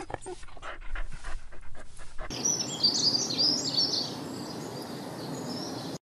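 A Chihuahua panting in quick breaths. About two seconds in, this gives way to birds chirping high over a steady outdoor hiss.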